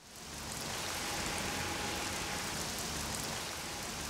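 Steady rain falling and spattering on surfaces, a dense even hiss that swells in at the start.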